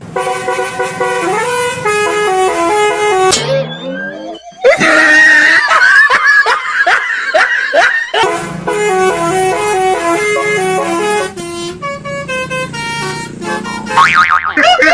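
Multi-tone Basuri "telolet" bus horn playing short tunes in stepped notes. About four seconds in, a falling glide is followed by a louder, harsher horn stretch with a wavering tone lasting a few seconds, before the stepped tune starts again.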